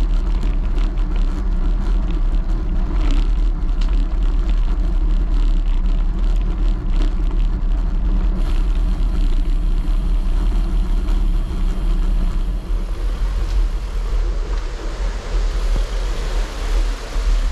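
Wind buffeting the microphone of a handlebar-mounted camera on a moving bicycle, a steady low rumble, with tyre noise and small rattles from the bike on a gravel towpath. The noise eases a little in the last few seconds.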